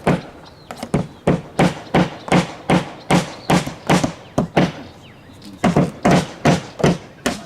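Steady hammer blows, about three a second, with a short break about five seconds in.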